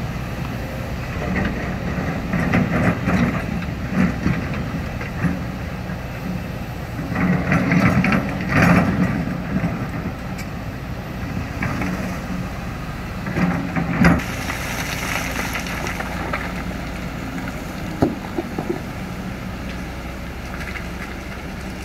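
Engine of a sand-excavating machine running steadily, with bursts of scraping and clanking every few seconds, loudest about eight seconds in, and a couple of sharp knocks later on.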